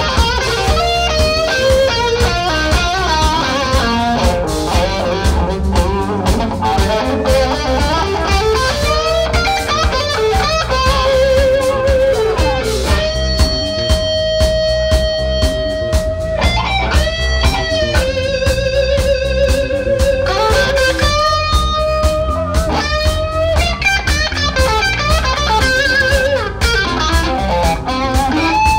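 Live blues band: electric guitar solo with long held, bent notes shaken with wide vibrato, over bass guitar and drums.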